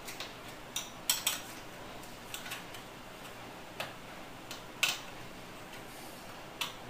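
Scattered small clicks and taps, about nine at irregular intervals, as a wire is handled and fastened to a terminal on the electric latch's switch receiver.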